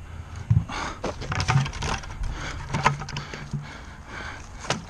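Scattered knocks and rustling: footsteps on a grassy, stony bank and gear being handled close to the microphone.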